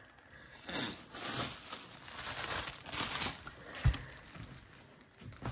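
Irregular crinkling and rustling of something being handled, with one soft thump about four seconds in.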